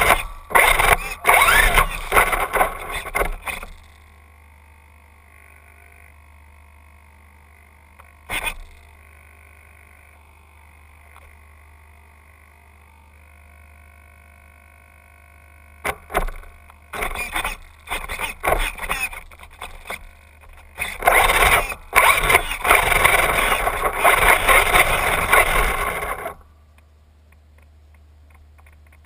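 Brushless electric motor of a Traxxas Bandit RC buggy whining in repeated throttle bursts, the wheels spinning and scraping without the car moving: the car is stuck. A cluster of bursts at the start, one short burst, then a longer run of bursts in the second half, with quiet gaps between.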